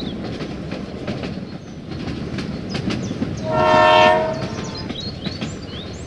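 Battery-powered toy steam locomotive running along a plastic track, its motor and wheels making a steady rattle as it pulls its wagons. A horn-like whistle sounds once, held for about a second, a little past the middle.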